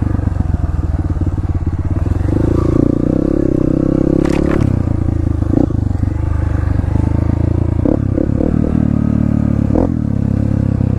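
Dirt bike engine running as it is ridden along a trail, its revs rising and falling. A sharp clatter about four seconds in, and a few lighter knocks later.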